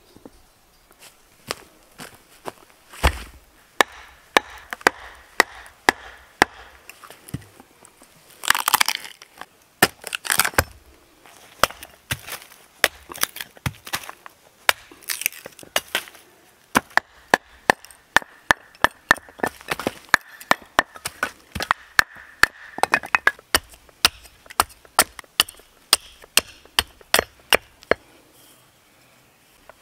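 Hatchet splitting wood on a chopping stump: a long run of sharp knocks as the blade strikes, closer together in the second half, with a few longer cracking, splintering bursts as pieces split off.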